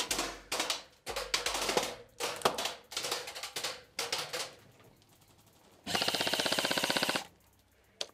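Airsoft gunfire: ragged, irregular clattering bursts for the first four seconds or so, then, about six seconds in, a fast, even full-auto burst of just over a second from an airsoft rifle.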